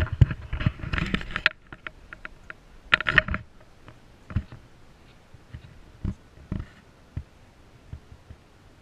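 Irregular knocking and clattering: a busy rattle of knocks for about the first second and a half, another brief burst around three seconds in, then single knocks about once a second that thin out toward the end.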